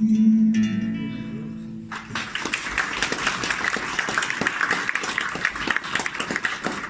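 The final chord of a classical guitar rings out and fades; about two seconds in, an audience breaks into applause.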